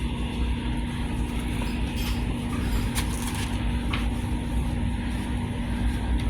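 Steady low road rumble and hum inside a moving car's cabin, with a couple of faint clicks.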